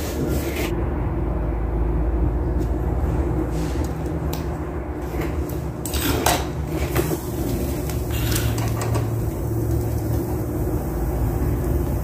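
A steady low machine hum with a few short knocks and clatter from parts and tools being handled at the back of a refrigerator.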